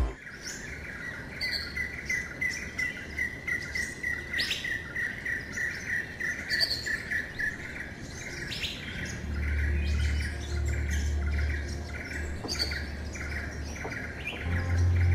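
Songbirds calling: a rapid series of short chirps, about four a second, for the first half, with scattered higher calls throughout. A low rumble comes in about nine seconds in.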